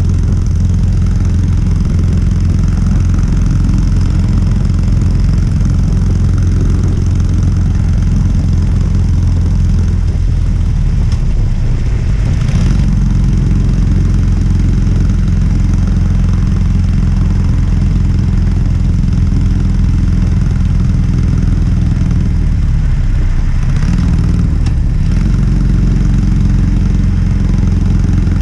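Harley-Davidson Sportster 883's air-cooled V-twin idling steadily through its stock exhaust. Its note wavers briefly twice, about eleven seconds in and again about twenty-three seconds in.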